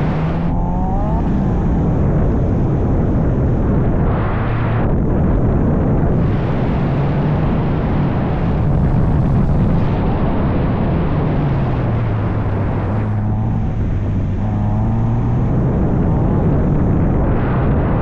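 Car engine pulling hard, its pitch rising and falling as the revs change, over a steady rushing road and rain noise. Brief higher squeals come near the start and again about two-thirds of the way through.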